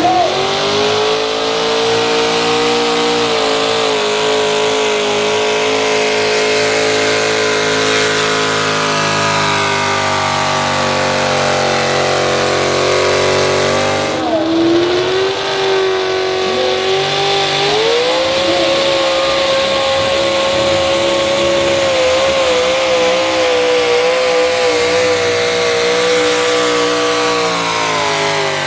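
Modified pulling-truck engines at full throttle hauling a weight-transfer sled. The first engine holds a high, steady note that slowly sags as the sled bears down, then drops away about 14 seconds in. A second truck's engine then climbs to a higher steady note about 18 seconds in and holds it.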